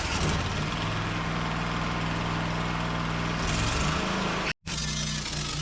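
Wood-Mizer LT15 Wide portable sawmill running steadily just after start-up, its engine and new band blade going. The sound drops out abruptly for a split second about four and a half seconds in, then carries on.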